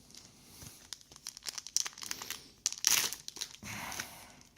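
Foil wrapper of a trading-card booster pack crinkling as it is handled and torn open, with a burst of crackling loudest about three seconds in.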